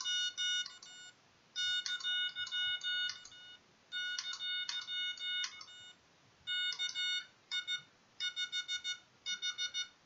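Morse code practice oscillator sounding a buzzy tone keyed by hand, sending random code. Groups of short and long beeps run for a second or two, with brief pauses between them.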